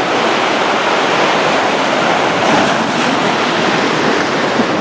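Heavy Atlantic surf crashing and washing against a broken seawall, a loud continuous rush with a slight swell a little past halfway.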